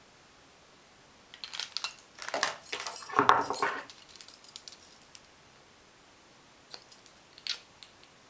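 Small metal objects clinking and jangling as hand tools are handled and put down. A busy cluster of clinks begins about a second and a half in and is loudest just past the middle, followed by a few light clicks near the end.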